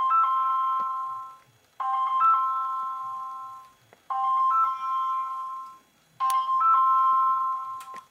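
Mobile phone ringtone: a short chiming phrase of a few notes played four times, about two seconds apart, cutting off near the end.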